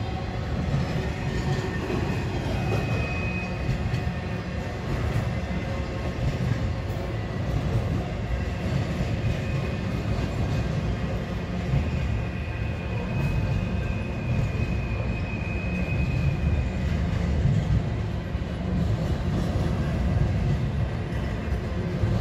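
Intermodal stack train's well cars rolling past, a steady low rumble of wheels on rail. A faint high wheel squeal comes in briefly a few seconds in and again for several seconds in the middle.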